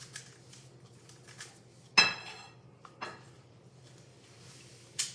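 A magnetic Rubik's-brand cube being turned, its plastic layers clicking a few times. There is a sharp, ringing clink about two seconds in and further clicks near three and five seconds.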